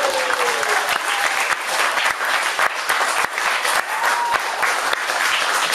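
Audience applauding and cheering at the end of a sideshow stunt, steady clapping throughout, with a cheer that falls away in the first second and a short high shout about four seconds in.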